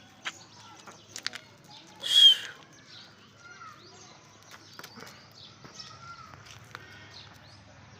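Aseel chickens, hens and chicks, making short falling peeps and soft calls, with scattered clicks. One loud, harsh sound comes about two seconds in.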